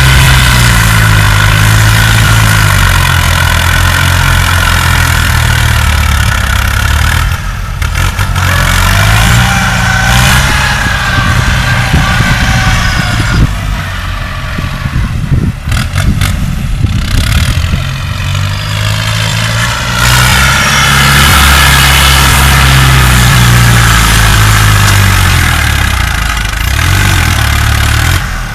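Diesel engine of a heavy earthmoving machine working under load, its note rising and falling, with a high whine above it. A few sharp clanks come about halfway through, where the engine drops quieter for a while before running loud again.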